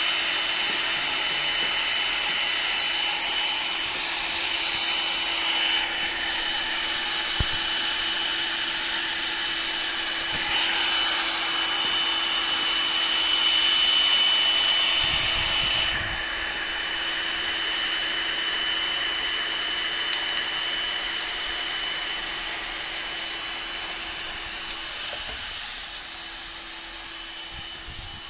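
LWT-1 welding machine for tarpaulin and banner fabric running, a steady blower-like noise with a constant high whine and a low hum. It swells for a few seconds in the middle and fades away near the end.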